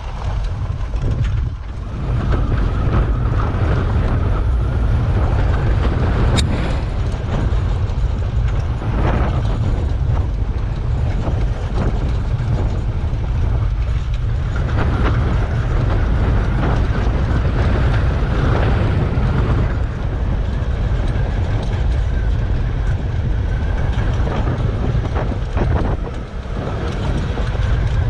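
Electric UTV driving over a rough dirt trail: the chassis creaks, groans and rattles over the bumps, with transmission whine under a steady low rumble. There is no engine note.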